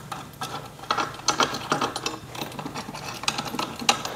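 Irregular run of small metallic clicks and scrapes as steel bolts are handled and threaded by hand into a gaming chair's metal seat plate, getting busier about a second in.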